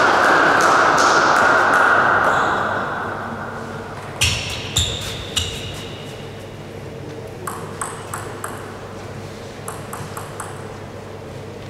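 Table tennis ball bouncing between points: three sharp ringing pings about four to five seconds in, then lighter taps as the ball is bounced again before the serve. A wash of crowd noise fades away over the first few seconds.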